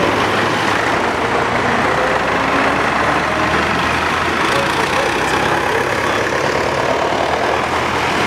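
Vintage tractor engine running steadily as the tractor drives slowly past on the road, with a van going by.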